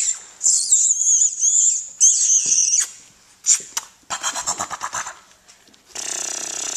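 Teddy bear puppies squealing in high, wavering squeaks as they play, for the first few seconds. A short rapid rattle follows, and a steady hiss starts suddenly near the end.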